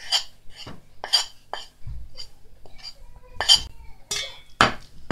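Metal spoon clinking and scraping against a ceramic plate and a steel mixing bowl as flour is pushed off the plate into the bowl. It makes a string of short, sharp clinks and scrapes, about two a second, with a louder one near the end.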